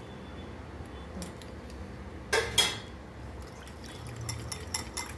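Wire whisk stirring jam into water in a glass bowl. Two sharp metal-on-glass clinks come about two and a half seconds in, and quick repeated clinking of the whisk against the bowl starts near the end.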